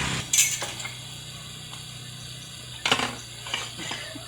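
A drilling machine's small engine cuts off right at the start, followed by sharp metallic clanks of metal parts being handled: a loud one just after the engine stops and another near three seconds in, with fainter clicks between.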